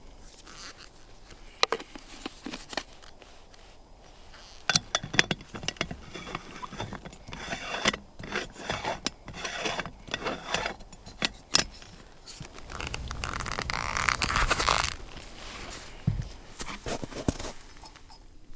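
An aluminium stovetop moka pot being filled and assembled: coffee grounds tapped and levelled in the funnel basket, then a run of metal clicks and scrapes as the top chamber is screwed onto the base. A steady rushing noise lasts about two seconds past the middle, and there is a single knock near the end.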